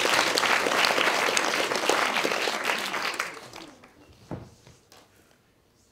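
Audience applauding, dying away after about three seconds, followed by a single soft thump.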